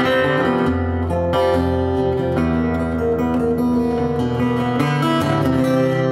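Acoustic guitar being strummed, chords ringing and changing steadily.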